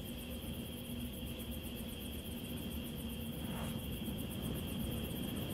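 Steady ambient drone: a low rumble under a held high tone, with a faint, fast, even pulsing high up.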